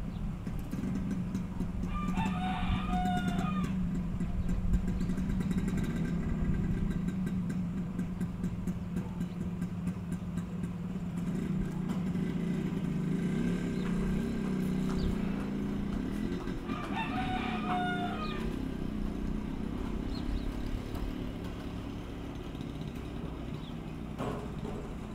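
A rooster crowing twice, the crows about fifteen seconds apart, over a steady low hum.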